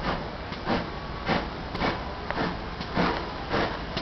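Steam locomotive Foremarke Hall, a GWR Modified Hall class 4-6-0, chuffing as it works steadily along, with even exhaust beats a little under two a second over a steady hiss.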